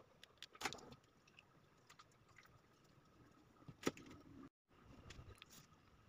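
Faint clicks and taps of small plastic parts being handled, with two sharper clicks, one near the start and one before the middle.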